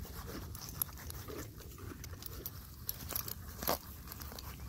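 A horse grazing through a plastic grazing muzzle: irregular crunching as grass is bitten off and chewed through the muzzle's hole, with one sharper snap late on.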